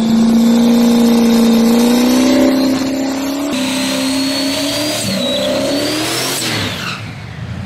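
Turbocharged pickup truck's engine held at high, steady revs during a smoky tyre burnout. About three and a half seconds in the sound shifts to a second stretch of hard revving with a high whistle rising in pitch, and the engine note drops away near the end.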